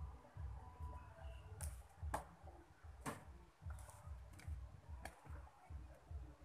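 About five scattered sharp clicks and light knocks from a TV's circuit board, its wire connectors and chassis being handled, over a steady low rumble.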